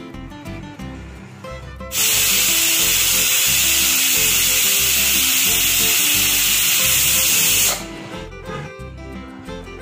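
Aluminium pressure cooker whistling, venting steam in a loud, steady hiss for nearly six seconds before it stops abruptly: the weighted valve releasing built-up pressure.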